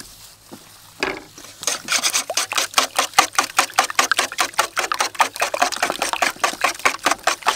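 Wire whisk beating eggs in a metal bowl: fast, even clicking of the whisk wires against the bowl at about eight strokes a second, starting about a second in.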